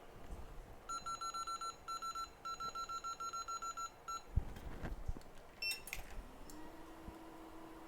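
Electronic rework station beeping rapidly, a fast run of short, identical high beeps in a few groups, as its buttons are pressed or held to set it. A few clicks and knocks follow, then a fan spins up and settles into a steady hum, typical of a hot-air station starting to blow.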